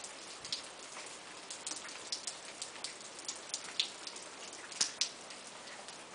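Drops pattering and ticking irregularly onto ice-glazed surfaces over a steady hiss, dripping after an ice storm; a few louder ticks come about four to five seconds in.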